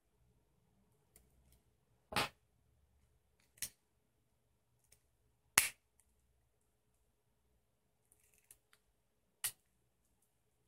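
Hard plastic clicks as the two halves of a Volkswagen flip-key remote housing are pressed and snapped back together. There are four sharp clicks, the loudest about halfway through.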